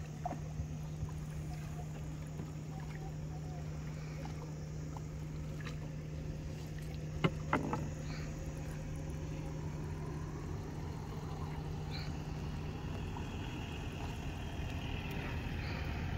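Small wooden rowboat being rowed on calm water, with soft splashing and a couple of sharp knocks of wood on wood about seven seconds in, over a steady low hum.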